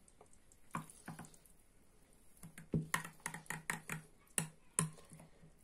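Metal spoon stirring chopped herbs into a tomato sauce in a glass bowl, clinking against the glass. A couple of light clicks come about a second in, then a quick run of clicks, several a second, through the second half.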